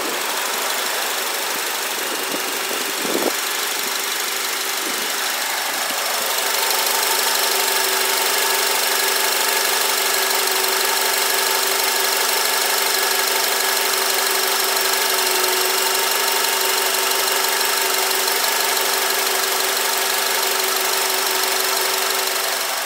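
Honda 2.4-litre i-VTEC dual-overhead-cam four-cylinder engine idling steadily, with an even hum that gets a little louder about six seconds in.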